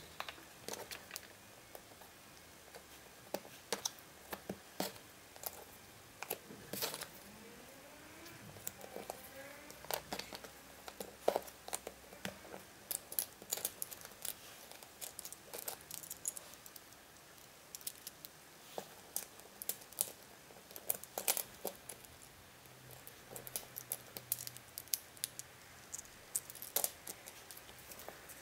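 Small, irregular clicks and taps of a hand handling cardboard jigsaw puzzle pieces and small plastic toy parts on a wooden table.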